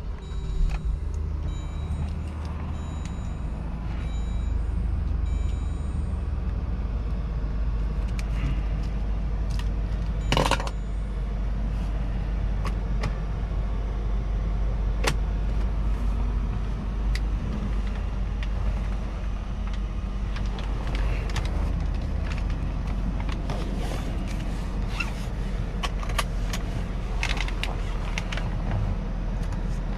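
2011 Jeep Grand Cherokee V6 on the move, heard from inside the cabin: a steady low engine and road rumble with scattered rattles and clicks, the loudest a sharp knock about ten seconds in.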